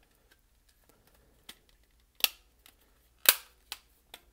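Plastic back case of a TI-83 Plus calculator being pressed and snapped into place: a handful of sharp clicks in the second half, the two loudest a second apart.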